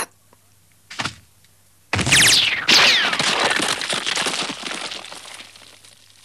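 Animated sound effect of ice cracking and shattering: a short crack about a second in, then a sudden loud crash about two seconds in with several falling whistling tones, fading away over the next four seconds.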